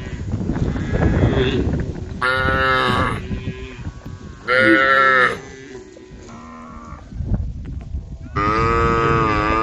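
Cattle mooing: three loud, drawn-out moos a couple of seconds apart, with fainter calls from other cows between them. A low rumbling noise fills the first couple of seconds.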